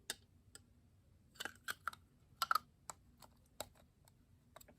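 About ten light, irregular clicks and taps of a plastic Staedtler pencil sharpener being handled and its parts worked open and shut.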